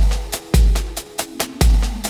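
Electronic intro music: a heavy kick drum with deep booming tails, quick hi-hat ticks between the beats, and a short synth line stepping down in pitch.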